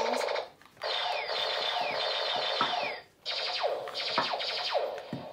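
Electronic sound effects and jingle from a toy robot's small speaker: three bursts of about two seconds, split by short gaps, the middle one with a run of falling zaps.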